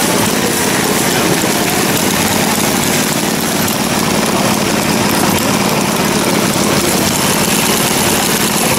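Scale-model gas engines running steadily, a dense continuous mechanical din with no pauses.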